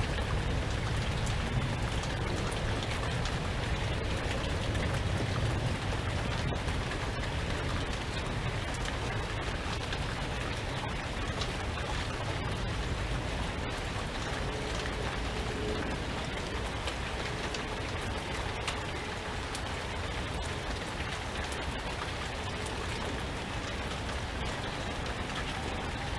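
Steady rain falling, with a dense patter of individual drops ticking on surfaces over a low rumble, easing slightly toward the end.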